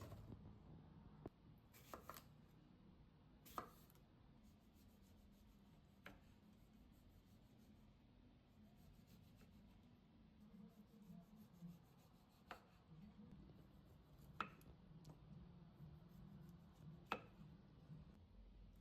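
Quiet kitchen preparation: a handful of light, sharp taps and knocks a few seconds apart, like utensils and ingredients being handled on a counter, over a faint low hum.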